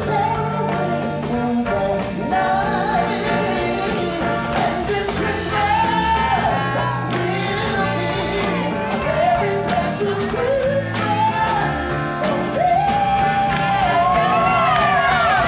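Male vocalist singing into a microphone over a live band of keyboard, drum kit, bass and electric guitars and horns. Near the end he holds a long note with vibrato.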